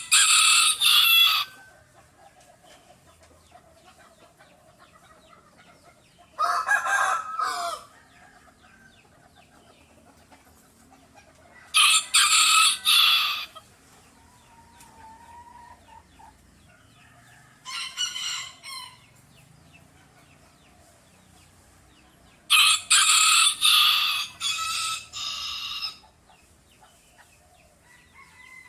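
Roosters crowing: five separate crows spaced about five to six seconds apart, the last one the longest. The second crow sits lower in pitch than the others.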